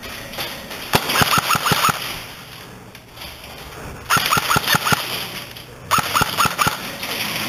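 Lancer Tactical AK74u airsoft electric gun firing three short full-auto bursts, each a rapid string of sharp shots lasting under a second.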